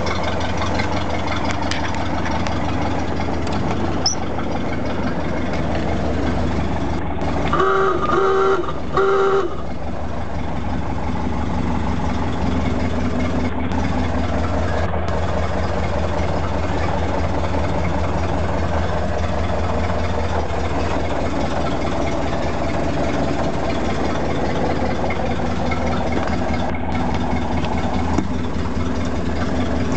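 1930 Ford Model A's four-cylinder flathead engine idling steadily. About eight seconds in, a pitched tone sounds in a few short blasts over about two seconds, louder than the engine.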